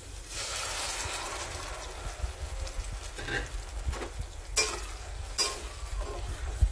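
Blended tomato paste poured into a steel pot of sautéed onions in hot oil, sizzling as it goes in, followed by a metal spoon stirring and scraping against the pot a few times.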